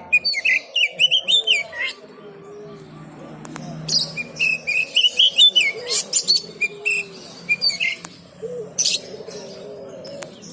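Oriental magpie-robin (kacer) singing loud bursts of quick, varied high whistles and chatter, in two long runs and a short one near the end, over a low murmur of other birds.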